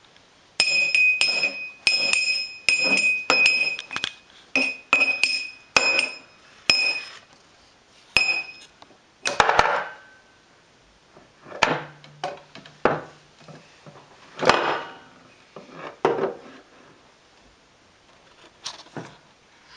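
A drinking glass knocked repeatedly on a bedside table by a baby's hand, each knock ringing with a clear high note, about two knocks a second for the first eight seconds. After that come scattered, duller knocks and bumps without the ring.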